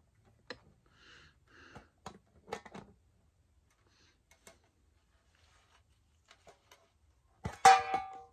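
Quiet room with faint scattered clicks and soft rustles, then near the end a short, loud vocal sound from the person on camera.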